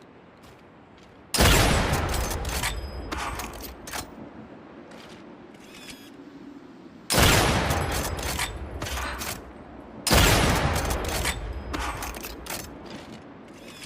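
Three rifle-shot sound effects, about a second, seven seconds and ten seconds in. Each is a sudden loud bang that trails off over a couple of seconds, with crackling clicks in the tail.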